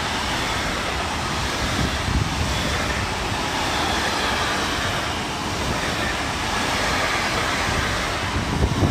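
Container freight train's flat wagons rolling past at speed: a steady rumble and rush of steel wheels on the rails, with a few heavier wheel thumps, the loudest near the end.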